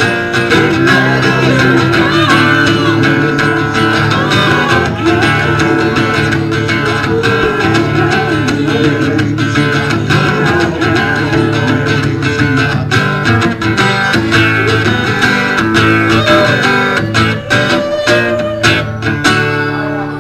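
Acoustic guitar strummed live, playing a song's instrumental passage.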